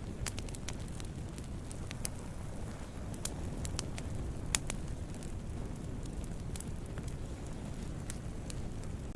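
Wood campfire burning, a steady low rumble of flames with scattered sharp crackles and pops, the loudest pop about four and a half seconds in.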